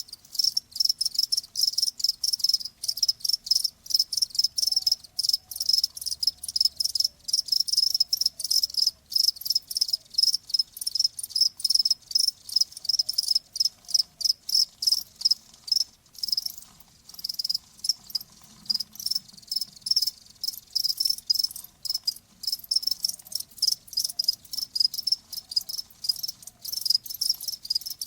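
Crickets chirping in rapid, even pulses, several a second, on one high pitch, with a brief lull about two-thirds of the way through.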